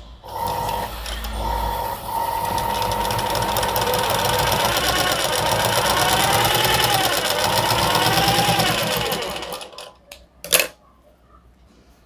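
Sewing machine stitching a curved hairline seam, running with a rapid, even stitch rhythm and a whine that wavers in pitch as the speed changes, then slowing and stopping near the end. Shortly after, a single sharp snip of scissors cutting the thread.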